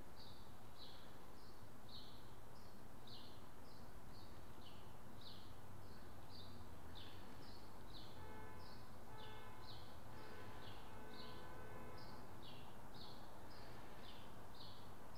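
Small bird chirping repeatedly, short quick high chirps about twice a second, faint over a steady background hum.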